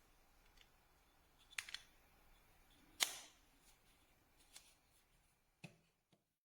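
Near silence broken by a few short clicks. The sharpest comes about three seconds in, with a brief ringing tail.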